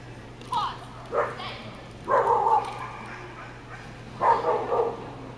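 A dog barking in short bursts, several times over a few seconds, while running an agility course.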